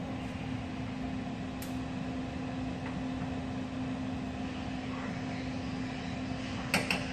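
Steady low mechanical hum of background machinery, with a faint click about a second and a half in and a short sharp clatter near the end.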